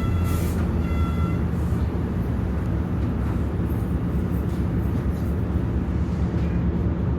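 Train rolling through a station with a steady low rumble, the last of its wheel squeal fading out in the first second or so.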